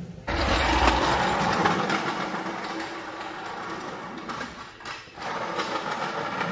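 Floor jack's wheels rolling across a concrete floor with a person riding on it, a steady noise that starts sharply just after the beginning and breaks off briefly about five seconds in.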